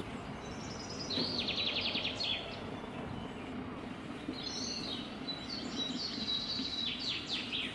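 Small birds chirping in quick high trills, twice, over a steady background hiss.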